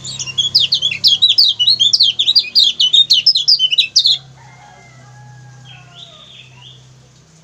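Kecial kuning (a yellow white-eye) giving a rapid run of sharp, falling 'ciak ciak' chatter calls, several a second, which stops abruptly about four seconds in. A few softer calls follow over a steady low hum.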